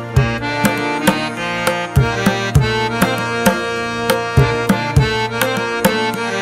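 Instrumental background music: sharp drum strokes, about two to three a second, over held melodic notes and a steady low drone.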